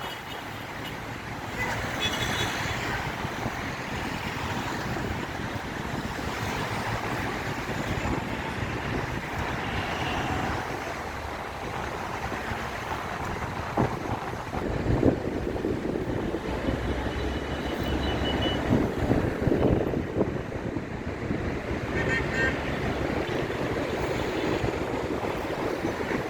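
Wind buffeting the microphone over a steady din of road traffic and sea waves, with a few sharp thumps about halfway through.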